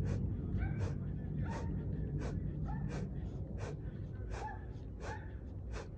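A man's sharp, rhythmic breaths while doing push-ups, each short and hissy with a brief voiced edge, coming about every three-quarters of a second. A steady low rumble runs underneath.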